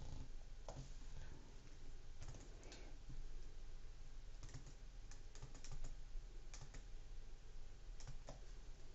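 Faint, scattered clicks of computer keyboard keys being pressed, irregular and a second or so apart.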